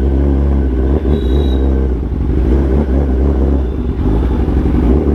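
Kawasaki ZX-10R's inline-four engine running at low revs, a steady deep exhaust note with small rises and dips in throttle.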